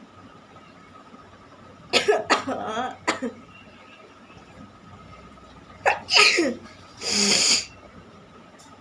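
A person sneezing, set off by a chilli: two sneezing fits a few seconds apart, each a sharp burst with a falling vocal tail. A short, forceful blast of air follows near the end.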